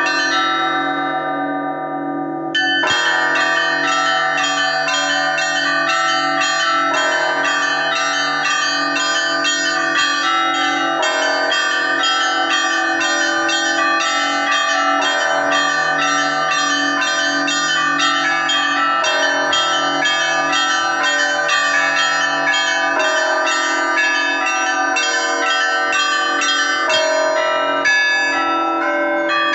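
Russian Orthodox church bells rung in a liturgical peal (zvon): small bells chiming rapidly over heavier bells, the pattern of lower strokes changing about every four seconds. The small bells drop out for a moment near the start, then the full peal comes back in.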